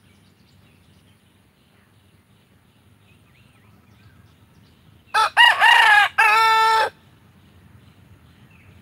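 Rooster crowing once, about five seconds in: a short first note, a longer note that rises and falls, then a long held final note. Faint high chirps in the background.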